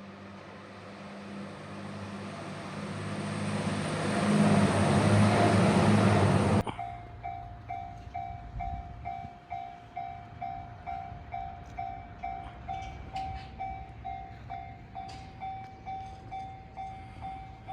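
JR Shikoku 2700 series diesel train passing, its engine and wheel noise growing louder, until the sound cuts off abruptly about six and a half seconds in. Then a Japanese level crossing warning bell rings steadily, about two strokes a second.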